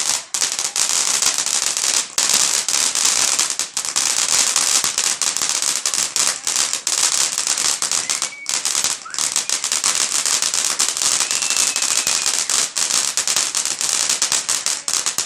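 Fireworks crackling: a dense, continuous stream of rapid sharp pops and crackles, broken by a few very short lulls.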